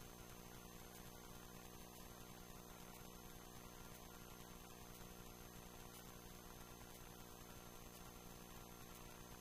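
Near silence: a faint, steady electrical hum with an even buzz of low tones and light hiss.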